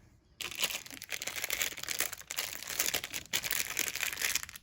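Crinkly packaging being handled and unwrapped, a dense crackle that starts about half a second in.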